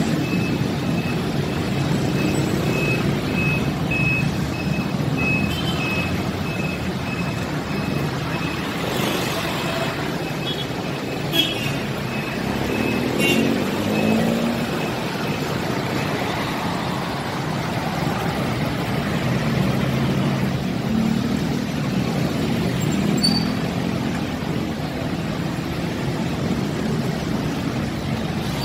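Busy road traffic: a steady mix of car, truck and motorcycle engines and tyre noise as vehicles pass through an intersection. A high electronic beep repeats about twice a second through the first half, and there is one short sharp knock near the middle.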